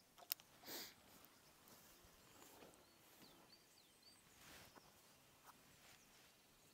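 Near-silent outdoor ambience with faint, short, high bird chirps now and then. About a third of a second in there is one sharp click, followed right after by a brief whoosh.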